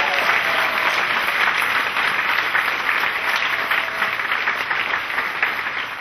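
Audience applauding steadily at the end of a performance.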